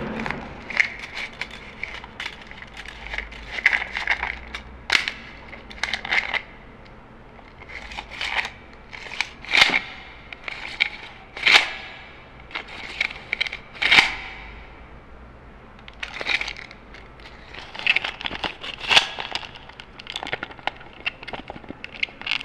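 Metal tape measure being handled: irregular clicks, snaps and rattles of the steel blade and case, some with a brief metallic ring, with short pauses between.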